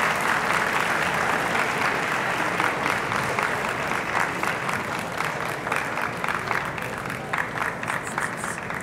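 Audience applauding: a dense wash of clapping that thins out into separate claps and fades toward the end.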